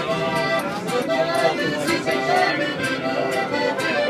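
Mariachi band playing live music in a subway car, a pitched melody over a steady strummed rhythm.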